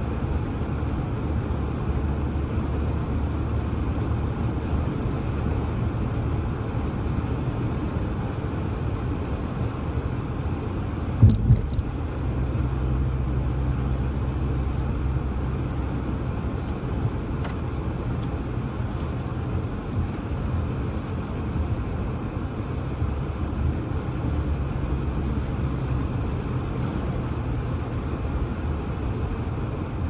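Steady low rumble of a car's engine and tyres heard from inside the cabin while driving, with two sharp knocks about eleven seconds in.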